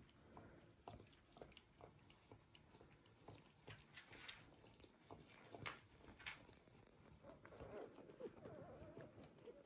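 Faint wet clicks and smacks of newborn Border Collie puppies suckling, with a faint wavering squeak near the end.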